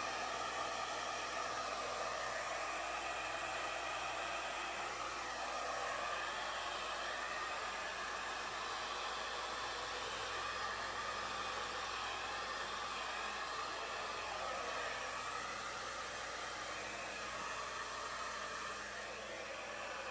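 Handheld hair dryer running steadily, blowing air across a wet poured-acrylic canvas; its tone shifts slightly as it is moved over the paint.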